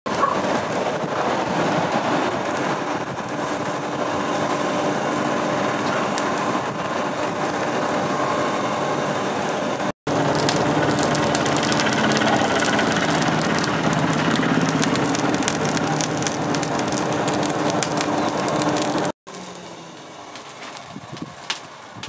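Blacksmith's forge fire roaring and crackling as sparks spit from the burning coals. Near the end, after a cut, it drops to a much quieter crackle with a few light clicks.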